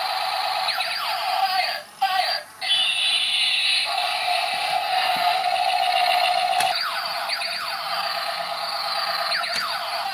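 Battery-operated walking robot toy's electronic sound effect: a looping, warbling siren-like gun-shooting sound. It cuts out twice briefly about two seconds in, then carries on.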